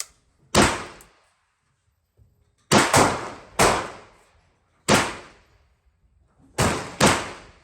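Six gunshots at a shooting range, each a sharp crack with a short echoing tail. They come unevenly, two of them less than a second apart, too fast for one single-shot gun, so more than one gun is firing.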